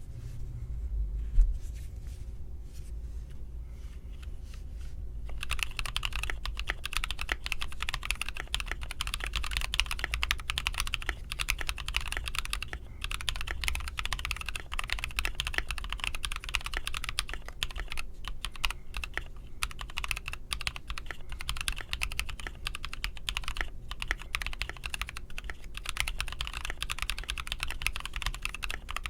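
Fast, steady typing on a Tofu 65 mechanical keyboard with lubed NovelKey Cream switches on a brass plate, starting about five seconds in after a few faint keystrokes and a single low thump near the start. A low background hum runs underneath.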